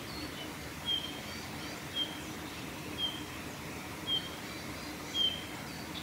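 Male Eurasian bullfinch singing: short, soft whistled notes about once a second, with fainter higher and lower notes between them, over a steady low background hum.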